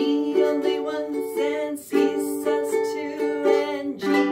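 Ukulele strummed in an island strum pattern, the chord changing about halfway through. Near the end a single down strum is left to ring.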